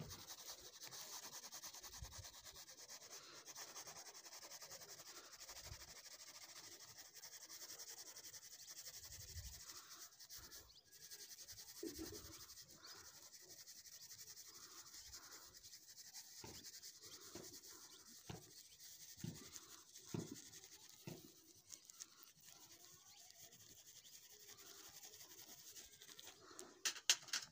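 Colour pencil shading on paper: faint rubbing of the lead, in a run of short strokes.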